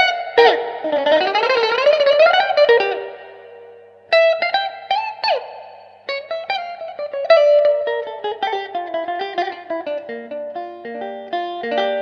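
Background music: a guitar instrumental with quickly picked notes and sliding pitch bends in the first few seconds, briefly dipping before the picked notes resume.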